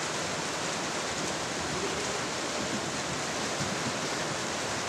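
A steady, even noise with no distinct sounds in it.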